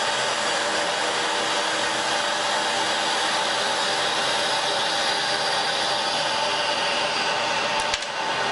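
Mini CNC wood lathe turning a wooden bead, its motor and spindle making a steady whir. A brief click and a short dip in the sound come near the end.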